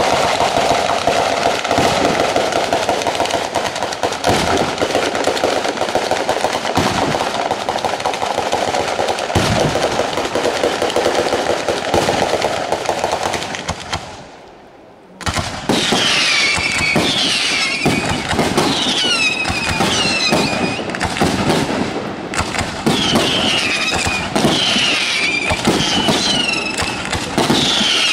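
A Sanseverese fireworks battery going off. For the first fourteen seconds or so it is a dense, unbroken rattle of firecrackers. After a brief lull it becomes a quick series of separate bangs from shells bursting in the air, many followed by a short falling whistle.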